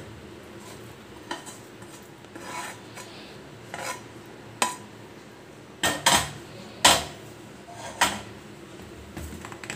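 Metal ladle scraping and tapping against a stainless steel plate as thick suji barfi mixture is scraped out and spread flat. About eight short, separate scrapes and knocks, the loudest a cluster about six to seven seconds in.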